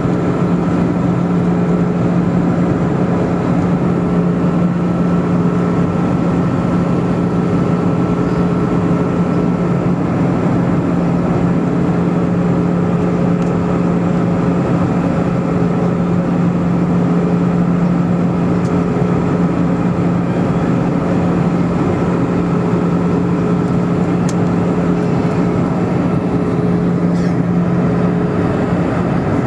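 Cabin noise of an Airbus A320-family airliner in cruise, heard inside the cabin by the window: the engines and airflow make a loud, unbroken rushing drone with a strong steady low hum and fainter steady higher tones over it.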